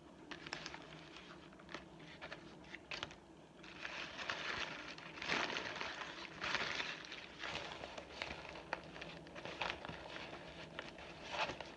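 Paper food wrapper crinkling and rustling as it is handled. There are scattered sharp crackles at first, then denser crinkling from about four seconds in.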